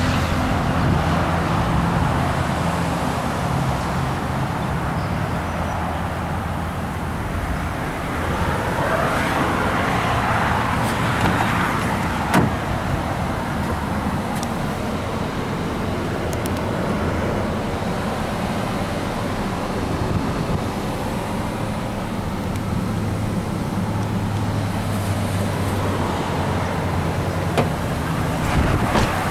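A vehicle engine idling steadily, with a sharp click about twelve seconds in.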